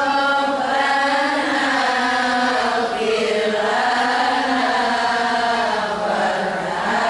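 A man chanting a melodic religious recitation from a booklet, drawing out long notes that slide up and down in pitch.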